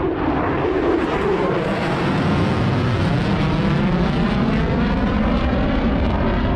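Aircraft flying past with a loud, steady engine roar, its tone slowly sweeping as it passes overhead.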